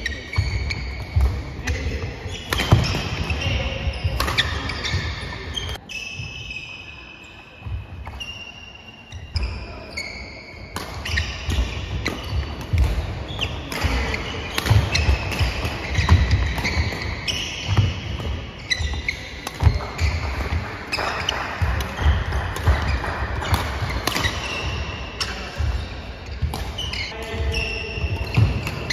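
Badminton doubles rally: rackets striking the shuttlecock with sharp pops, and players' shoes squeaking and feet thudding on a wooden sports-hall floor, many short squeaks and thuds throughout.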